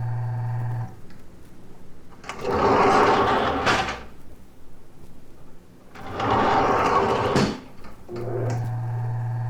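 A steady hum cuts out, then two scraping slides, each about a second and a half long and ending in a sharp knock, and the hum comes back.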